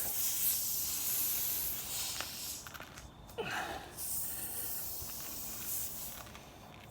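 Steady hiss of air escaping from a pressurised tyre around the plug and insertion tool, in two long stretches with a short break in the middle, fading toward the end.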